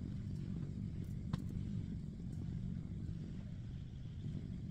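Steady low rumble of a motor vehicle running, with a single sharp click about a second in.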